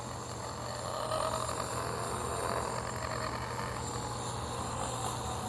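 Lightsaber soundboard's idle hum from the speaker in the Korbanth K2 hilt: a steady low electric drone, with a slight swell in the sound about a second in.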